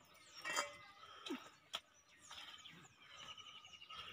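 Stainless steel plates and bowls clinking lightly as they are set down on the ground, a few separate clinks with a rapid high chirping trill in the background.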